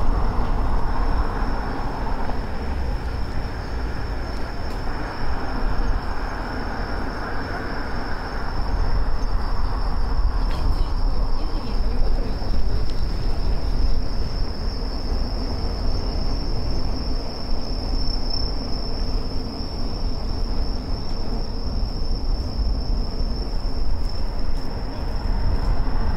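Low, steady rumble of wind and tyre noise from a moving bicycle, with a continuous high-pitched trill of summer insects holding one even pitch throughout.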